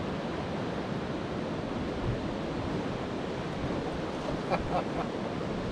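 Ocean surf washing steadily against a sandstone rock shelf, with wind buffeting the microphone.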